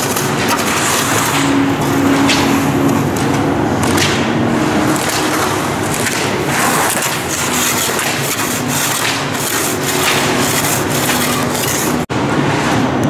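Ski edges scraping and rasping on hard-packed snow as skis carve quick slalom turns, a loud continuous hiss broken by sharper scrapes, with a brief cut-out about twelve seconds in.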